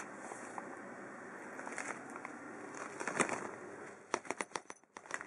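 Plastic food pouch rustling, then about four seconds in a quick run of sharp ticks as dried bonito and small-fish cat topping is poured from the pouch onto dry kibble in a ceramic bowl.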